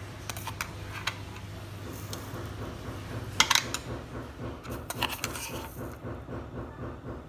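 A few faint clinks and taps of kitchen utensils and dishes being handled, the clearest about three and a half seconds in, over a steady low hum.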